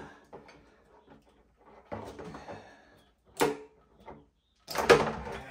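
Plastic wiring-harness connectors on a Razor Dirt Rocket SX500 electric dirt bike being worked apart by hand, with wires and plastic rustling. A sharp click comes about three and a half seconds in, and a louder clatter of handling near the end.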